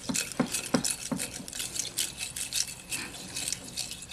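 Spoon stirring a mix of purple glue and borax solution in a container: irregular clinks and wet scrapes, busier in the first second or so and lighter after.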